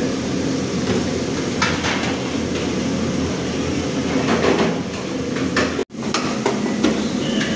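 Steady hum and hiss of commercial kitchen equipment running, with a few knocks and clinks of utensils. The sound breaks off for an instant about six seconds in.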